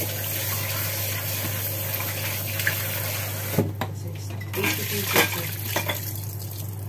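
Tap water running into a stainless steel bowl while hands swish cut tuna pieces around to rinse them, with a few clanks of the metal bowl a little past halfway as it is tilted.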